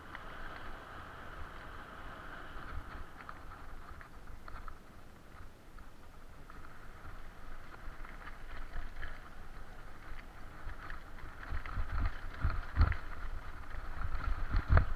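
Bicycle rolling fast over a dirt forest trail behind a pulling dog, with tyre noise and the rattle and knock of the bike over the ground. Heavier jolting thumps come in the last few seconds as the trail turns into a narrow, rough single track.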